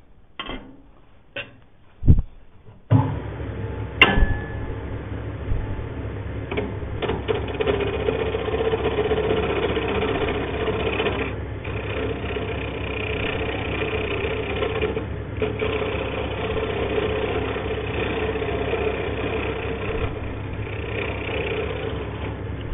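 A few knocks and clicks, then about three seconds in a wood lathe starts and runs steadily while a turning tool cuts across the end face of a spinning hardwood blank, truing up its bottom.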